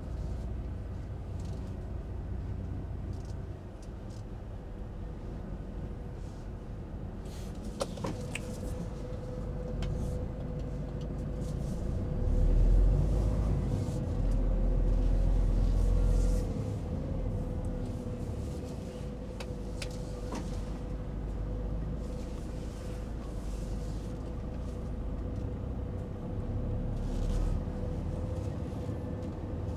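Scania timber truck's engine running with a steady low rumble that swells louder for a few seconds in the middle. A steady whine joins about eight seconds in, and a few light clicks sound.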